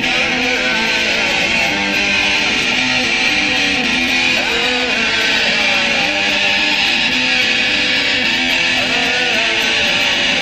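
Electric guitar strumming chords steadily.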